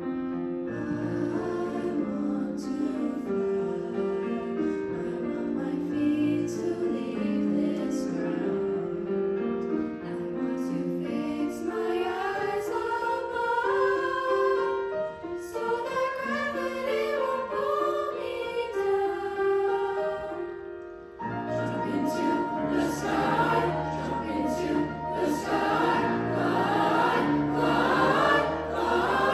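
A high-school choir singing with piano accompaniment. The voices come in over the piano about a third of the way through, break briefly about two-thirds through, then return fuller and louder.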